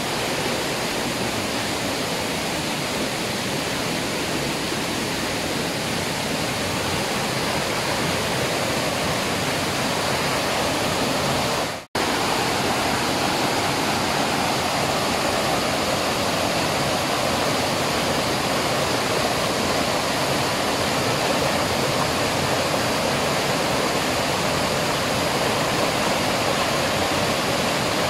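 Waterfall rushing steadily, with one momentary break in the sound about halfway through.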